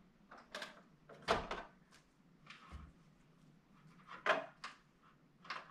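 Handling noise as a power cord is fed behind a flat-screen TV on its stand: a few scattered knocks and rustles, the loudest about a second in and again just past four seconds.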